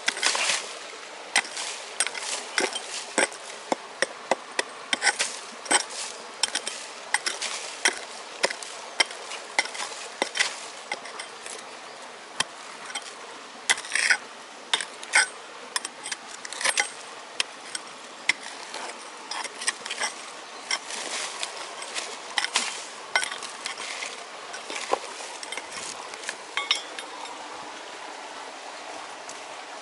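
Hand hammer striking rock in a run of sharp, irregular knocks, at times two or three a second. The knocks stop a few seconds before the end, leaving a steady hiss.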